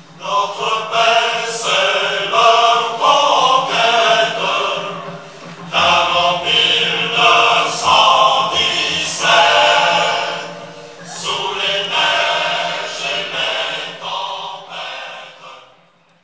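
A choir singing in long phrases, fading out near the end.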